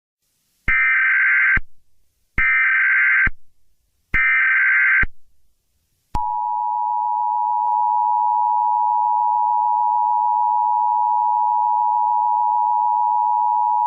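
Emergency Alert System tones: three short bursts of the warbling SAME header data tones, each about a second long, then about six seconds in the two-tone attention signal starts, a steady dual tone that holds on.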